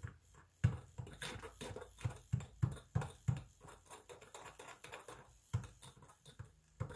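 Handheld electric milk frother whipping homemade hand cream in a small glass jar, the whisk clicking and knocking irregularly against the glass, a few times a second.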